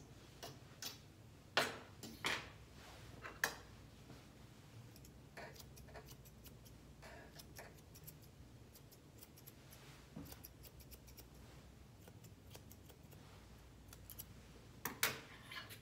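Grooming scissors snipping through a West Highland White Terrier's leg coat in short, irregular cuts, louder in the first few seconds and again near the end, fainter in between.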